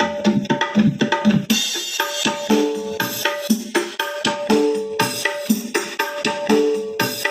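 Music with a quick, steady hand-drum rhythm and tambourine over pitched instrument notes, played back through a Zetapro 12-inch full-range line array speaker under test.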